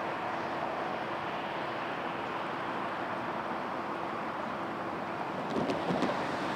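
Steady road traffic on a city avenue: the tyre and engine noise of cars driving by, with a faint steady hum that fades about two-thirds of the way through. A few short sharp sounds come near the end.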